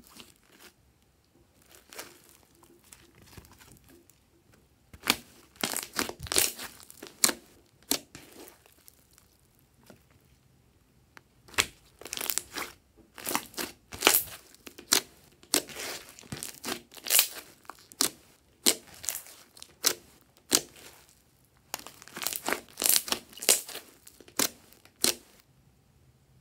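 Glossy bead-studded slime being squeezed, stretched and pressed by hand, giving bursts of sharp crackling clicks and pops in several groups with short quiet pauses between them.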